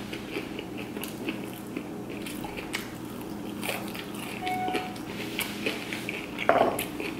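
Close-up chewing of fried soft shell crab, with many small crisp crackles from the fried coating and shell. A short, louder sound stands out near the end.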